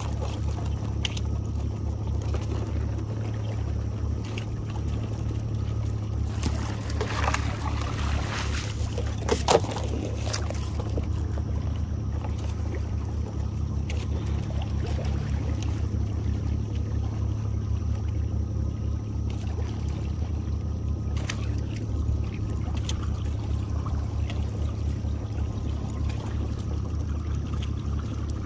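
Boat motor running steadily at low speed, with water trickling and splashing off the trotline as it runs up over the boat's line roller. A sharp knock about nine and a half seconds in.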